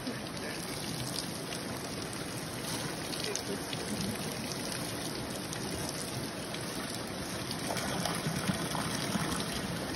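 Water pouring from a spout and splashing steadily over a person's head and shoulders and onto the pool below, a little louder near the end.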